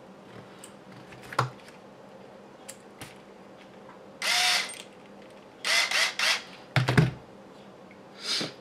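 Small cordless electric screwdriver driving short screws in brief bursts of about half a second, several in a row with a faint whirring pitch, mixed with sharp clicks and a loud knock of hard plastic parts being handled.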